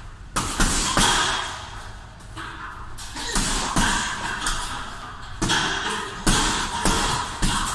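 Punches landing on a hanging heavy punching bag: dull thuds in irregular flurries of a few blows, with short pauses between them.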